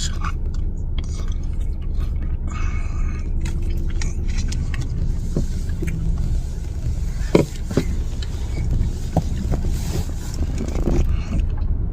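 Steady low rumble of an idling vehicle engine, with a few small clicks and scrapes over it.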